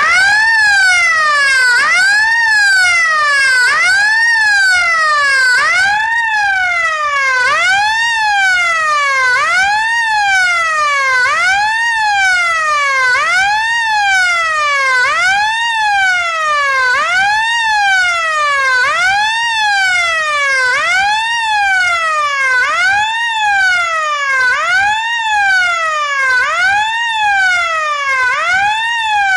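DNI4210 24 V electronic fire-alarm siren sounding its fire-brigade ('Tipo Bombeiros') tone: a wailing tone sweeping up and down, about once every 1.7 seconds.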